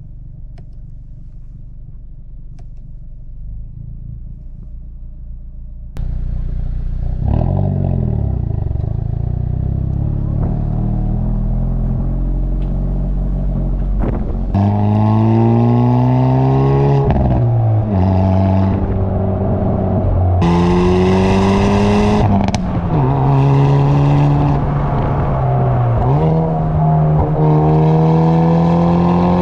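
Hyundai Veloster N's factory exhaust, from its 2.0-litre turbocharged four-cylinder, heard at the rear of the moving car. A low rumble at first grows louder about six seconds in. From about halfway, the engine pulls hard through the gears, its note rising steeply and dropping sharply at each upshift, several times over.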